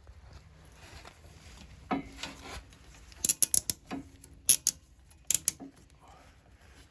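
A releasable zip tie being ratcheted tight in three short pulls, each a quick run of sharp clicks, after some rubbing and handling.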